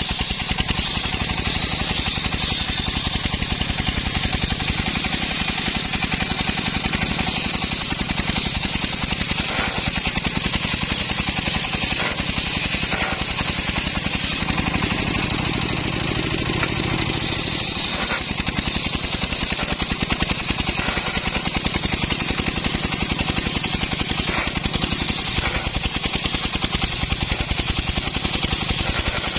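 Engine of a homemade circular-saw sawmill running steadily, a fast even chugging of firing pulses with a higher whine above it.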